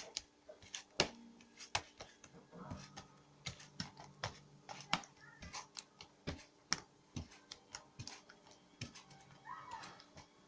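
Sticky homemade glue-and-Tide slime being kneaded and pulled by hand, making a run of small irregular clicks and pops.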